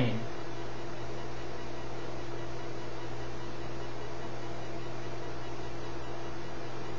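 Steady electrical hum with a constant hiss: a low drone with a fainter, higher tone above it, unchanging.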